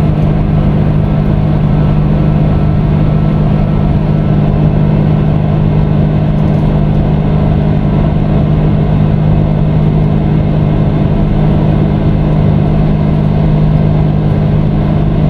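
Steady rush of jet engines and airflow heard inside an Airbus A330 passenger cabin, with a constant low drone.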